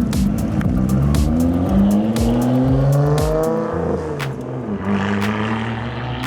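Performance car engine accelerating away: the engine pitch climbs for about two seconds, drops around the middle, then settles into a steady low drone, with sharp cracks scattered through the first half.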